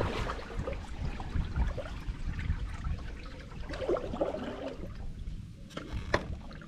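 Kayak paddle strokes: water splashing and trickling off the blades, with a couple of sharp clicks near the end. A low wind rumble sits on the microphone throughout.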